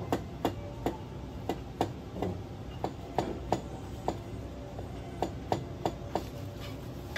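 Chinese cleaver slicing a king oyster mushroom on a plastic cutting board: about fifteen sharp knocks of the blade striking the board, roughly two a second at an uneven pace.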